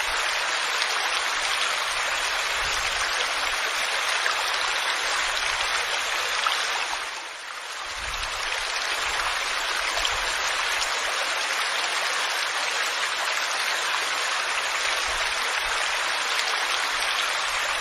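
Waterfall: a steady rush of falling water. It dips briefly about seven seconds in, then comes back at the same level.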